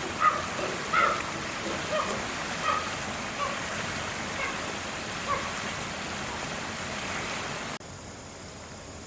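A series of short, high-pitched calls, about one or two a second, that fade and stop after five seconds or so, over a steady hiss of background noise. The background drops abruptly near the end.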